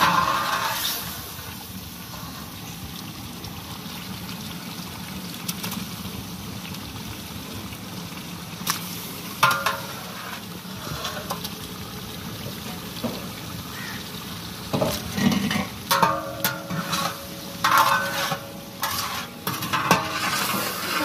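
Chicken korma cooking in a large metal deg with a steady hiss, while a long metal ladle stirs it, scraping and clinking against the pot now and then and most often in the last few seconds.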